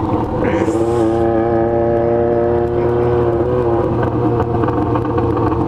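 Yamaha XJ6 motorcycle's inline-four engine running under way, its note rising slightly and then holding steady, with a low wind rumble.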